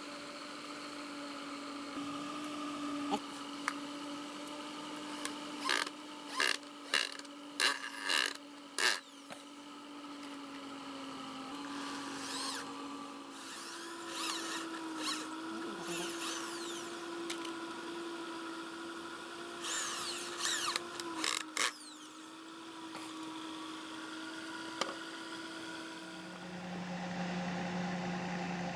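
A small power tool's motor running steadily, its pitch shifting slightly as it takes load, with two clusters of sharp clicks or knocks partway through. A lower hum takes over near the end.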